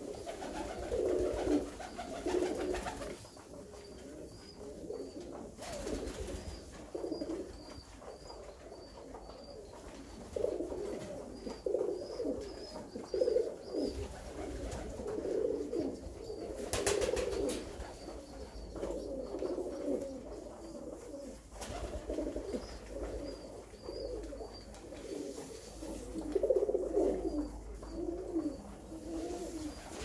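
A flock of Alföldi-Körösi tumbler pigeons cooing, many overlapping coos swelling and fading in waves.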